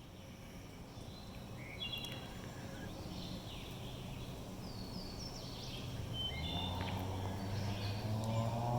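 Small birds chirping in short, scattered calls. From about six seconds in, a low droning hum swells in loudness underneath them.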